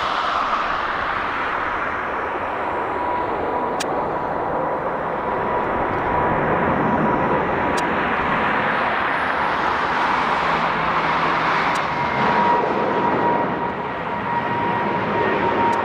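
Twin-engine wide-body jet airliner climbing out at takeoff thrust: steady jet engine noise with a thin, steady whine above it.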